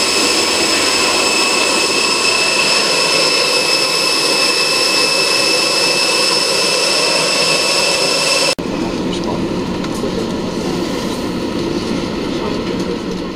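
Steady high-pitched whine and rush of a jet airliner running on the apron, heard from close by on foot. About two-thirds of the way through it cuts off abruptly to a lower, duller steady rumble.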